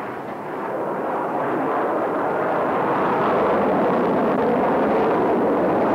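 Boeing 727's three Pratt & Whitney JT8D jet engines running at high power as it sets off down the runway: a loud, even rush of jet noise that swells over the first couple of seconds and then holds steady.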